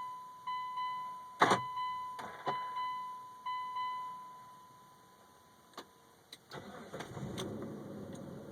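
A vehicle warning chime beeps about twice a second, with a few sharp clicks, then stops. About six and a half seconds in, the 2000 Mitsubishi Montero Sport's engine cranks and starts, then keeps running at an idle that the owner says does not hold steady RPM.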